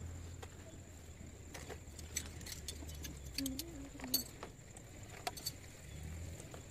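Scattered light clinks and clicks, denser in the middle, over a steady low hum.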